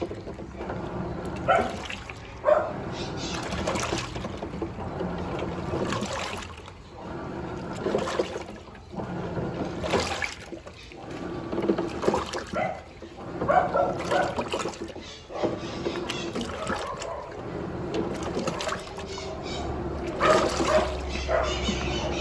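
Sayko washing machine agitating a load of bedding in a tub filled to the high water level: water sloshing and splashing in irregular surges every second or two.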